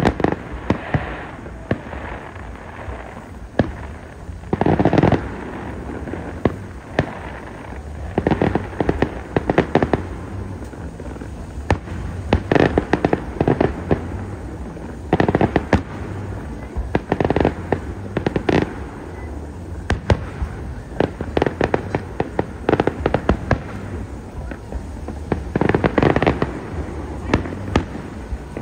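Aerial fireworks going off: sharp bangs and crackling, grouped in clusters every few seconds.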